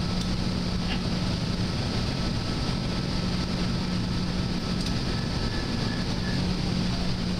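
Steady hum of running shop machinery: a constant low drone over an even rush of noise.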